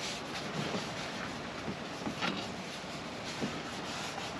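Alcohol prep pad being rubbed back and forth over a car's strut-tower panel, a steady scrubbing hiss with a few small ticks.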